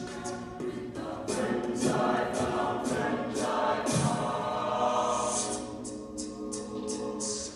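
A mixed-voice a cappella group singing a song in harmony, voices only with no instruments.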